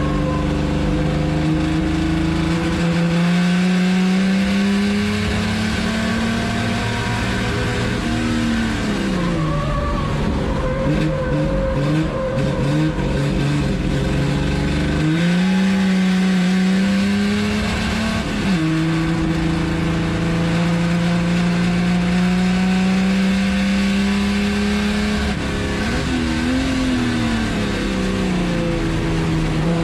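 Chevrolet Opala 250 race car's straight-six engine at racing revs, heard from inside the stripped cockpit. The pitch climbs slowly along the straights and dips and wavers under braking and downshifts, about eight and about twenty-six seconds in. It drops sharply on a quick upshift about eighteen seconds in.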